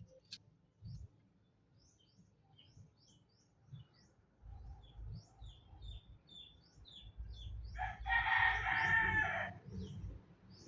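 Small birds chirping repeatedly in short, high, falling chirps. A rooster crows once, about eight seconds in. A low rumble runs under the second half.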